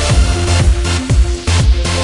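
Electronic dance music with a heavy, steady beat and deep bass.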